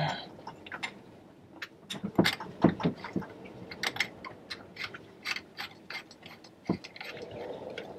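Irregular metallic clicks and taps as a threaded retaining ring is screwed by hand onto the fuel filter housing of a Westerbeke marine diesel engine. The clicks bunch together about two to three seconds in, with a sharper knock near the end.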